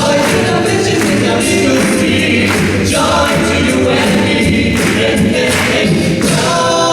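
A cappella vocal band singing in several-part close harmony over a sung bass line, with no instruments.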